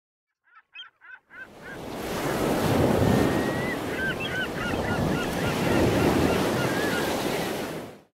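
Outro sound effect of ocean surf with birds calling. About four quick bird calls open it, then waves wash in and swell twice, with small chirping calls over them, before it cuts off suddenly near the end.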